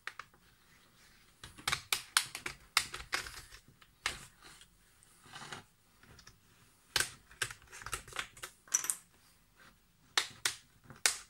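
Plastic snap clips of an Acer Aspire ES1-132 laptop's screen bezel clicking in quick clusters as the bezel is pried loose with a plastic opening pick.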